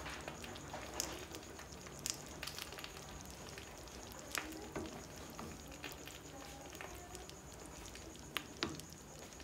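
Thick red chile adobo sauce with pieces of wild boar meat bubbling at a boil in a pan: a faint steady sizzle with a few sharp pops scattered through it.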